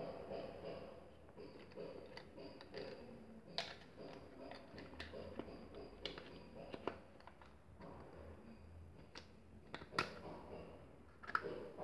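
Plastic parts of a hand blender being handled and fitted together as the motor goes back into its housing: faint rubbing with scattered light clicks, the sharpest near the end.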